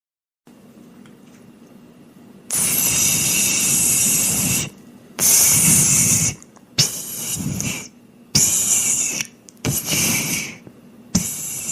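An animal hissing in forceful, breathy bursts, about six in a row, each one to two seconds long with short pauses between.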